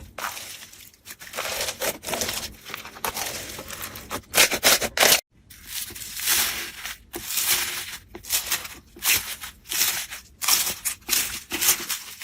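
Slime being squeezed and pressed by hand close to the microphone, making a run of irregular, crisp, noisy bursts, with a short break about five seconds in.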